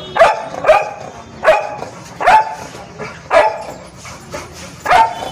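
Labrador Retriever barking: six single loud barks at uneven intervals.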